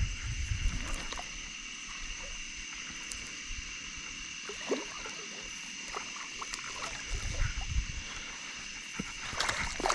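A steady, high-pitched night chorus of calling animals, with irregular knocks, bumps and water splashing from a hooked fish being fought beside a kayak; the splashing is busiest near the end.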